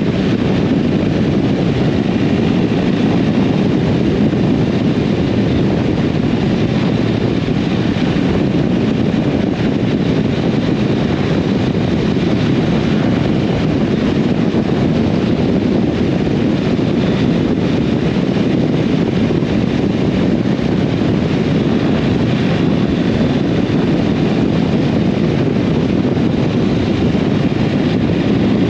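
Steady wind noise on a GoPro microphone tucked inside a rider's jacket on a moving motorcycle, a dense low rush with no breaks.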